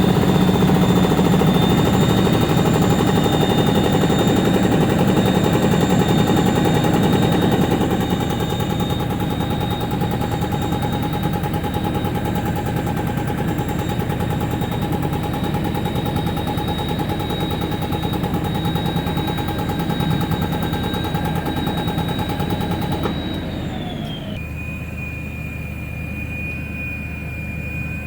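Work truck's engine revved up to run its air compressor and build air pressure, a steady loud running with a high whine and a fast rattle. About 23 seconds in the whine falls in pitch and the level drops as the engine settles back toward idle.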